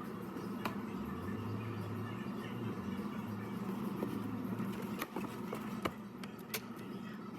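A steady low machine hum, with a deeper tone coming in for a few seconds and a handful of sharp clicks and knocks.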